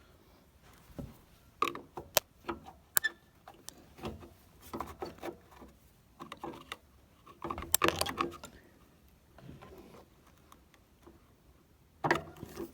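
Hands fitting a plastic third-brake-light cover back into place: scattered sharp clicks and knocks with some rustling, loudest around two and eight seconds in.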